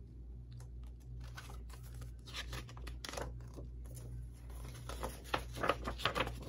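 Paper and plastic rustling and crinkling, with light clicks, as a DVD case is handled and opened to get at its paper insert. The rustling comes in louder bursts near the middle and toward the end.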